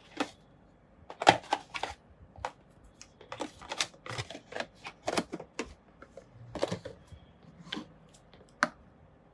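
A cardboard bleach-kit box and its small bottles being handled: irregular clicks, taps and papery rustles as the box is folded and the bottles are moved.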